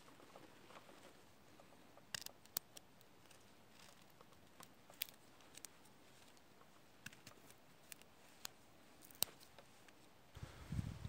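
Fixed-blade knife carving a green wooden stick: a few faint, sharp cuts and clicks as the blade bites into the wood, spaced irregularly. A low rumble starts near the end.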